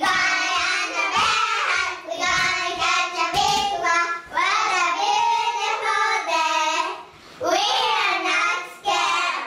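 A small group of young girls singing a chant together in unison, with a brief pause about seven seconds in.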